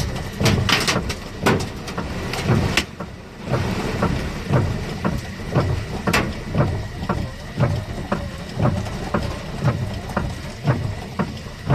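Large hailstones, about golf-ball size, striking hard surfaces in a severe storm: heavy, irregular thuds and bangs, two or three a second, over a steady hiss of falling rain and hail.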